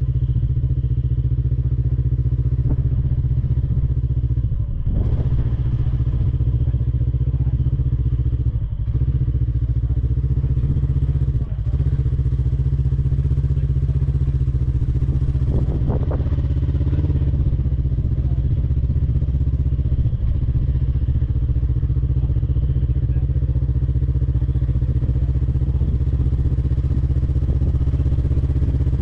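Rock crawler buggy's engine running steadily at a constant pitch, without revving, as the buggy crawls up a rutted hill, with a couple of brief knocks.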